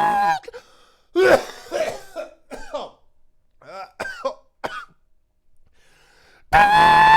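A man's mouth imitation of a V10 Formula 1 engine: a high, steady, nasal vocal whine stops just after the start. Several seconds of short coughing, sputtering vocal bursts follow, some dipping in pitch, and the high whine starts again about six and a half seconds in.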